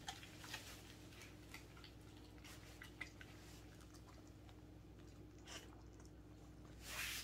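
A Welsh corgi chewing and biting at a whole raw chicken: faint, scattered wet clicks and small crunches, with a short louder noise near the end.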